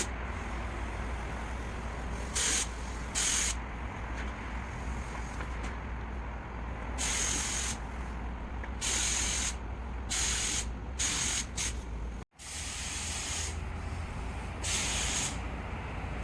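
Paint spray gun hissing in short bursts of half a second to a second, on and off as the trigger is pulled and released, with a steady low hum underneath.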